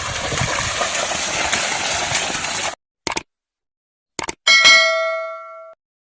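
A steady rushing, splashing noise stops dead, followed by silence, a few short clicks, and then one loud, bell-like metallic ding that rings out and is cut off abruptly.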